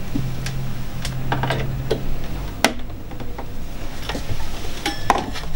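Irregular clicks and taps of a sewing machine foot control being handled and freed from its packaging, with a couple of sharper clicks near the middle and end.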